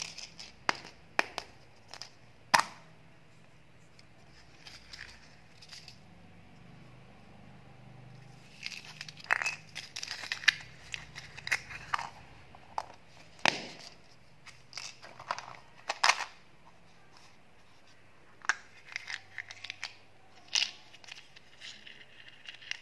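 Plastic candy packaging being opened by hand: a scatter of sharp plastic clicks and snaps as a ball-shaped plastic container is twisted and pried apart, with crinkling and tearing as a seal is peeled off a plastic candy case.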